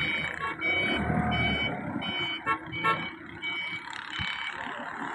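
A vehicle's electronic warning beeper sounding in short, evenly spaced beeps, about two and a half a second, over a low engine running; the beeping stops near the end. Two sharp knocks come about halfway through.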